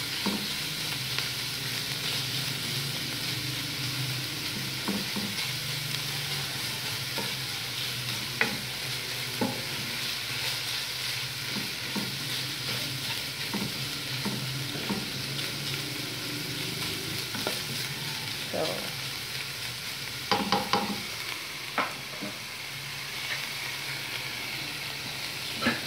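Ground pork with chopped onion and garlic sizzling in a nonstick pan, a plastic spatula stirring and scraping through it with occasional clicks against the pan. A cluster of louder knocks comes about twenty seconds in.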